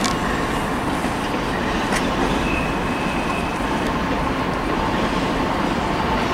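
Diesel-hauled freight train running through the station, a steady low rumble.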